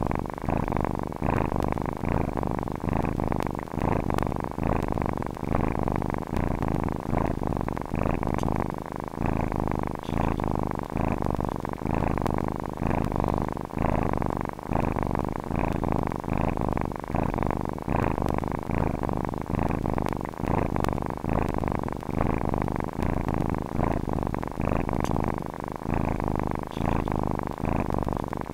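Domestic cat purring steadily, in a continuous run of rhythmic pulses that swell and ebb with each breath.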